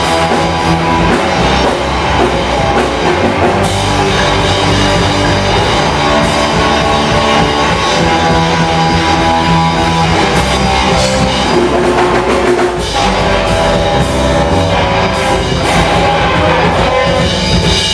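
Rock band playing live and loud: electric guitar, electric bass and drum kit.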